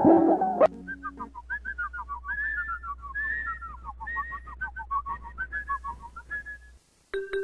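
Rapid bird-like warbling whistle: a quick run of short chirps gliding up and down for about six seconds. Before it, a plucked guitar-like chord cuts off in the first second, and near the end a single pitched keyboard-like note starts.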